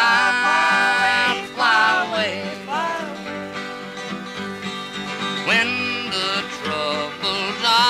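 Country-style music with guitar, a pitched melody sliding up and down over a steady accompaniment.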